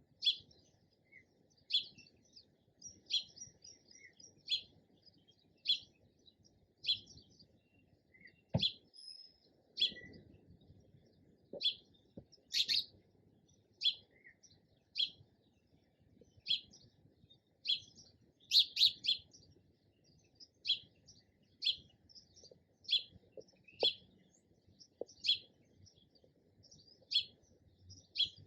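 Sparrow chirping: short single chirps repeating about once a second.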